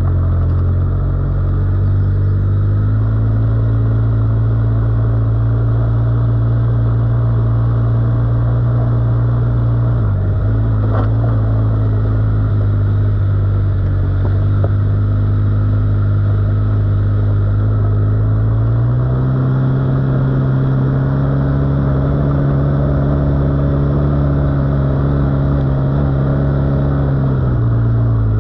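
Quad-bike (ATV) engine running under way on a trail, its pitch stepping up about three seconds in, dropping back around ten seconds, rising again around nineteen seconds and falling near the end as the throttle changes.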